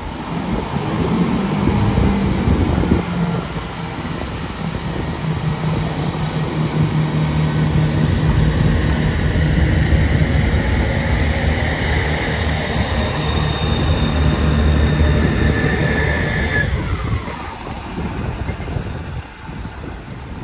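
Class 165 Networker Turbo diesel multiple unit pulling away under power, its underfloor Perkins diesel engines droning loudly as it accelerates past. A high whine drops in pitch as the unit passes, and the engine sound then fades as the train draws away.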